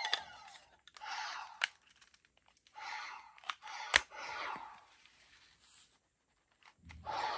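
Plastic parts of a Lieflasher toy replica being handled and folded between modes: short scraping slides, with sharp snaps as pieces click into place, the loudest snap about four seconds in.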